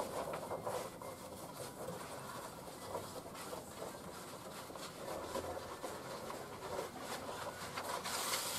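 A roll of stiff fusuma paper being unrolled and spread across a plywood table, with continuous rustling and crackling of the paper, a little louder near the end.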